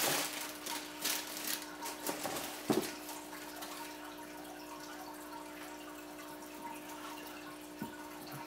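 Tissue paper rustling and crinkling as a sneaker is unwrapped from its box in the first few seconds. Under it the steady hum and water trickle of an aquarium filter.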